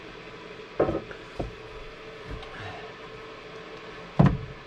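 Vinyl floor planks knocking and thumping as they are handled and set down onto the glued plywood floor: a couple of knocks about a second in, a faint one midway, and the loudest thump near the end.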